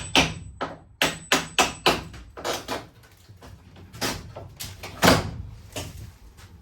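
Hammer knocking on timber: a quick run of blows about three or four a second in the first two seconds, then scattered knocks, the loudest about five seconds in.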